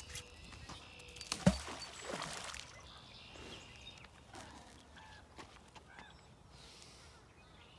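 A fishing magnet on a rope, thrown into the river, lands with a single loud splash about a second and a half in. After that only faint water and outdoor sounds remain.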